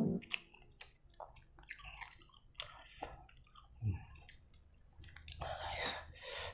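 Close-up mouth sounds of a person chewing spicy instant noodles: small wet clicks, smacks and squishes, with a short breathy hiss near the end.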